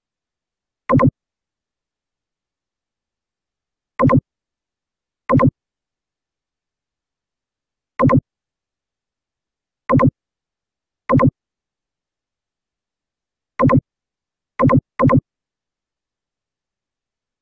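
Nine short, identical synthetic pops, each a quick double pulse, coming at irregular intervals with dead silence between: a mouse-click sound effect marking each click.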